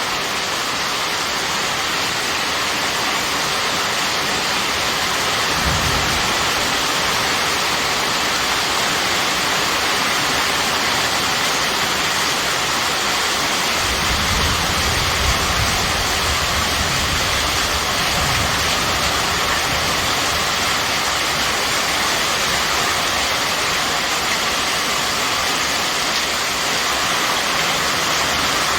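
Steady rain falling hard, a dense, even hiss. A low rumble comes in briefly about six seconds in and again for several seconds past the middle.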